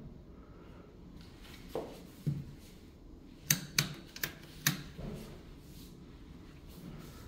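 A quick run of sharp clicks and knocks, four or five within about a second and a half near the middle, after two softer thumps, in a small hard-surfaced room.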